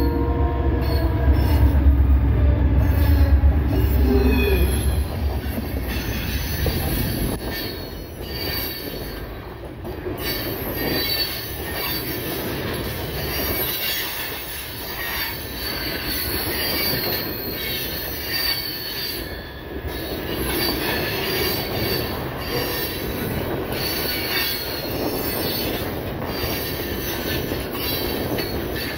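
Norfolk Southern freight train passing close by: the diesel locomotives' engines rumble loudest for the first several seconds, then boxcars roll past with steady wheel noise and short, intermittent high-pitched wheel squeals.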